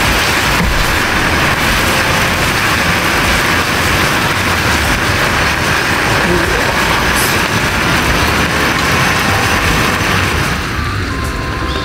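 Liquid simmering hard in a steaming frying pan, a steady sizzling hiss that eases somewhat about ten and a half seconds in. The sauce is being reduced by boiling.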